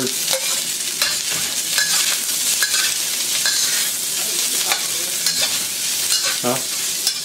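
Sliced onions, celery and bell peppers sizzling in hot oil in a wok, with a metal spatula repeatedly scraping and knocking against the wok as they are stir-fried.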